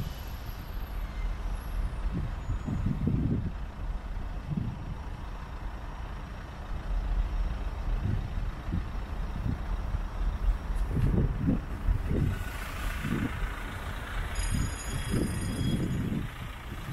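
Outdoor road-traffic noise with irregular low rumbles of wind buffeting the microphone, and a louder passing swell about twelve seconds in.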